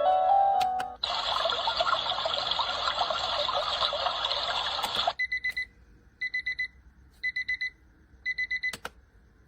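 Digital alarm clock beeping: four bursts of about four quick, high beeps, roughly a second apart, then a click. Before the beeping, a steady rushing hiss runs for about four seconds and cuts off abruptly, and music ends about a second in.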